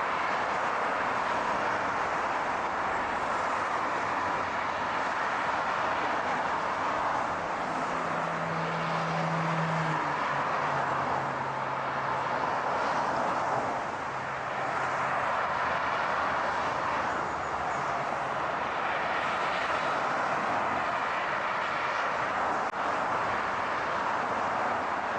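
Steady car road noise, with a low engine hum that comes in about seven seconds in, steps down in pitch about ten seconds in, and fades out a little before the twenty-second mark.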